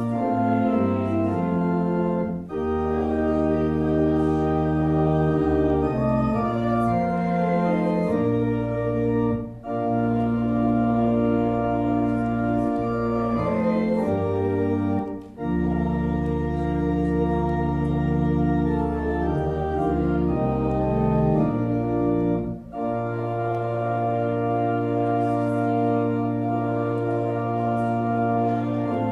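Church organ playing slow, sustained chords, changing chord every second or two, with a short break between phrases four times.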